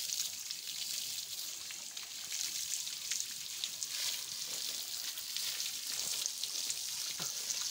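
Water from a garden hose spraying onto a cow's wet back and splashing and dripping onto the muddy ground, a steady hiss.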